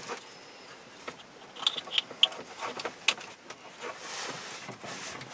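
Plastic wiring-harness connectors and loose wires being handled and pushed together: a few sharp plastic clicks, the loudest about three seconds in, over a light rustle of wires.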